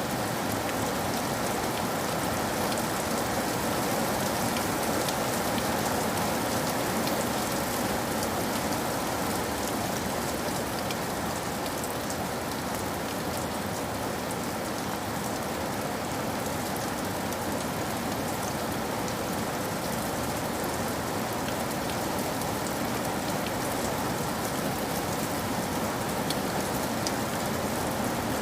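Steady rain falling and pattering on a surface, an even hiss thick with fine drop ticks that holds at one level throughout.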